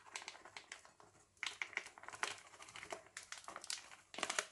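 Plastic bag of corn starch crinkling and crackling in several short spells as it is handled and tipped to sprinkle starch.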